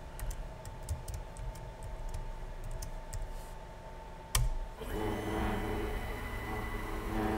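Computer keyboard typing, then a single sharp click as the command is run, followed by the Onefinity Pro CNC router's axis motors whining steadily for about two and a half seconds as the gantry makes a rapid move to the work zero.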